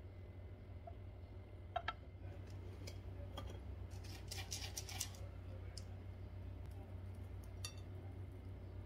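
Quiet kitchen handling sounds: a couple of sharp clicks about two seconds in, then a burst of crisp rustling and clicking around the middle as a plastic tub of fried shallots is handled and the shallots are pinched out and sprinkled onto a plate. A few more light clicks come near the end, over a low steady hum.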